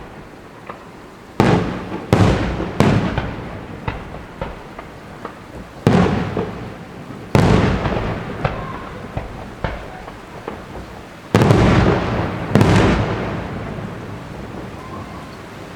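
Fireworks display: about seven loud shell bursts at irregular intervals, each trailing off in a long rolling echo, with smaller pops in between.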